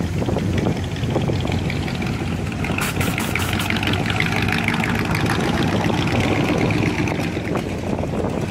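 Classic cars passing slowly one after another. The low, pulsing exhaust of an open-header hot rod engine is loudest at first, then a second car's engine and tyres pass by.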